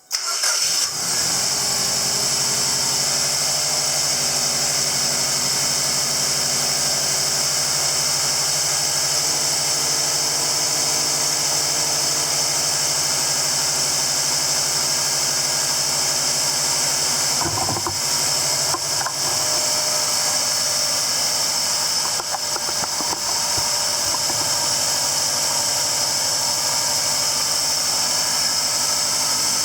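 Subaru EJ207 turbocharged 2.0-litre flat-four engine, fitted with a new short block to cure piston slap, comes in suddenly and then idles steadily.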